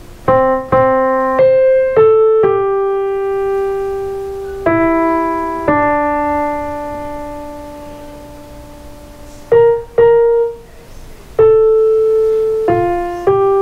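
Electronic keyboard on a piano voice playing a slow melody one note at a time. Some notes are struck quickly in a row and others are held and left to fade, the tune mostly stepping downward.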